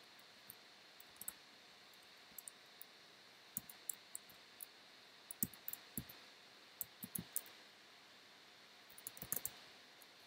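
Faint computer keyboard typing and clicks, irregular and sparse, with a quick run of keystrokes about nine seconds in.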